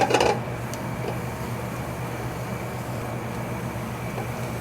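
Diced onions and minced garlic sizzling steadily in melted butter in a sauté pan, over a low steady hum.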